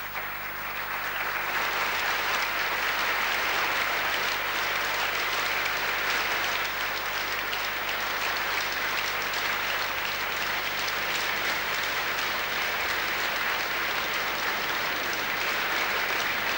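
Large theatre audience applauding steadily. The clapping swells over the first couple of seconds, then holds even.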